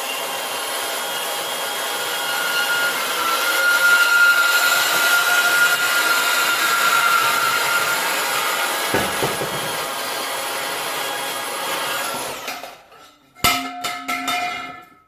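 A power saw running and cutting through steel exhaust pipe with a steady, high whine, then spinning down about 12 seconds in. A few sharp metallic clanks follow as the cut pipe is handled.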